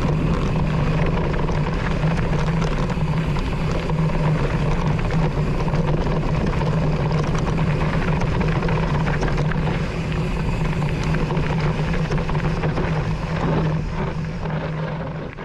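Mountain bike riding a dirt trail, heard from a handlebar-mounted GoPro: steady tyre rumble, chatter and wind noise with a constant low hum, fading out near the end.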